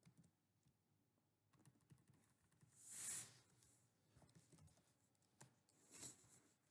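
Faint computer keyboard typing: scattered key clicks, with a brief louder hiss about three seconds in and another about six seconds in.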